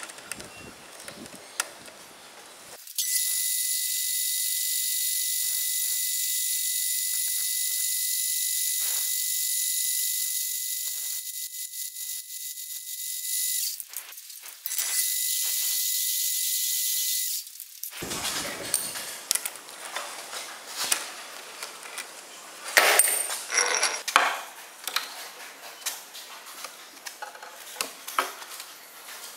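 A metal lathe runs with a steady high-pitched whine, pausing briefly partway, while the end of a threaded steel rod held in its chuck is drilled. It then stops, and scattered metal clinks and knocks follow as the rod is handled and laid in a bench vise, the loudest being two sharp knocks.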